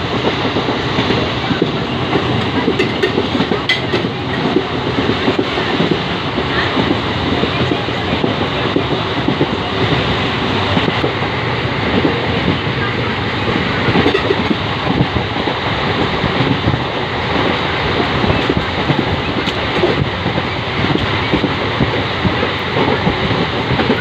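A train running at speed, heard from inside a coach: a steady rumble with dense clattering of wheels over the rails, without a break.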